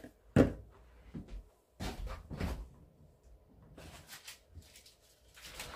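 A string of light knocks and clunks from kitchen items being handled: cupboard, bottle and pan being moved about on the counter and stove.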